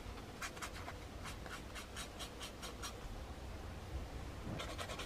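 Sanding stick rubbed back and forth over a small plastic model-kit part in short scratchy strokes: a quick group of about four, a run of about eight at roughly five a second, then another short group near the end.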